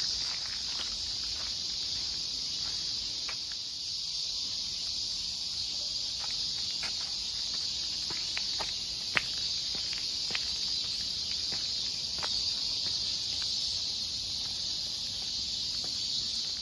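A steady, high-pitched chorus of insects in the forest trees, with scattered light steps on gravel and stone paving as someone walks, one a little sharper about nine seconds in.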